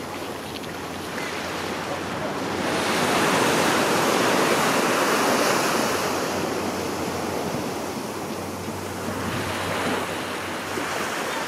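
Sea surf washing against a rocky shore. It swells about three seconds in and eases off after about six seconds.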